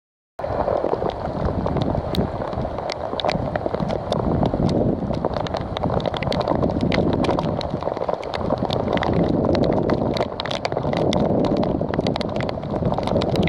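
Heavy rain on a lake, a steady rain hiss with many sharp raindrop taps close by. It starts about half a second in.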